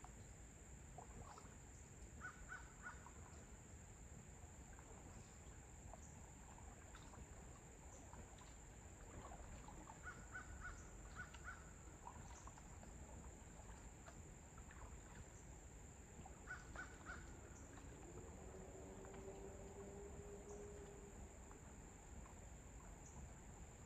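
Faint pond-side ambience: a steady high-pitched insect drone, with birds calling in three short bursts of caws. A faint low steady hum comes in about three quarters of the way through and fades after a few seconds.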